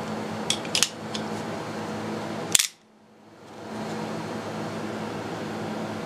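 Steady background hum with a few light clicks in the first second, then one sharp click about two and a half seconds in. After the sharp click the background cuts out and fades back in over about a second.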